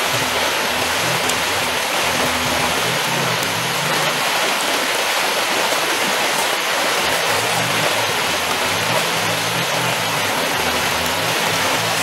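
Steady rushing of river water, with slow background music under it.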